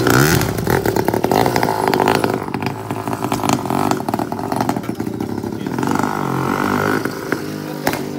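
A small engine revving up and down, with rapid clicking throughout.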